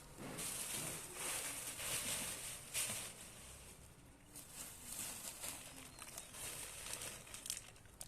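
Rustling and crinkling of waste, plastic among it, handled during sorting, in irregular swells with no steady rhythm.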